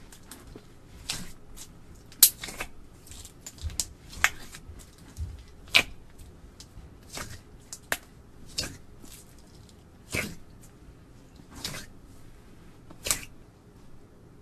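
Slime being squeezed and kneaded by hand, giving sharp sticky pops and crackles at irregular intervals, roughly one a second.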